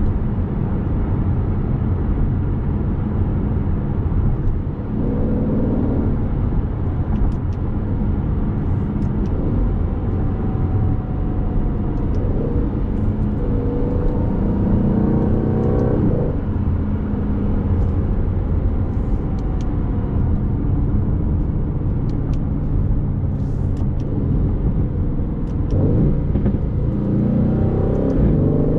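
Aston Martin Vantage's 4.0-litre twin-turbo V8 driving along, its note rising three times as it accelerates, over a steady low road rumble.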